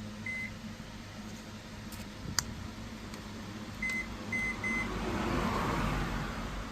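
Microwave oven keypad beeping as the cooking time is set: one beep, a sharp click about two seconds in, then three quick beeps around four seconds. After that the oven starts running with a low hum and fan noise.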